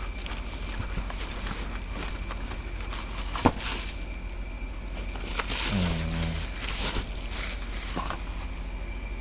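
Packaging and a keyboard being handled during unboxing: rustling with scattered small clicks, and one sharp click about three and a half seconds in. A short low pitched sound comes around the middle, and a steady low electrical hum runs underneath.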